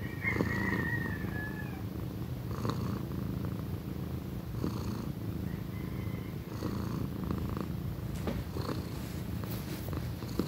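Young domestic tabby cat purring loudly and steadily, the purr swelling with each breath about every two seconds. A brief high squeak sounds about half a second in.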